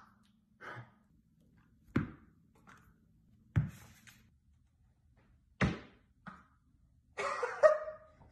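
Three loud thuds about a second and a half to two seconds apart, each followed by a softer knock, then a man's excited shout near the end.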